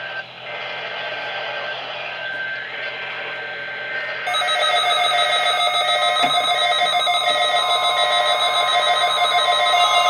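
Hiss from a weather radio, then about four seconds in several NOAA weather radios start sounding their electronic alert beeps at once: overlapping steady tones in a repeating pattern, the radios signalling receipt of the Required Weekly Test.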